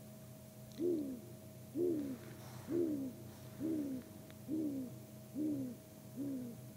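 Great grey owl singing: a slow, even series of deep hoots, seven in all, each one sliding down in pitch at its end. They start about a second in, come about one a second, and grow slightly quicker and softer toward the end.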